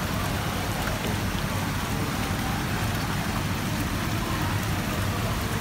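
Steady splashing and bubbling of aerated water running through live-seafood holding tanks, over a steady low hum.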